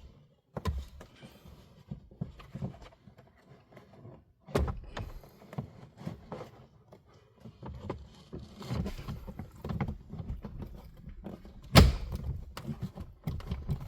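Plastic glove box of a Kia Soul being fitted back into the dashboard: scattered clicks and knocks of plastic parts being handled. Near the end comes one loud, pretty solid snap as it pops back into place.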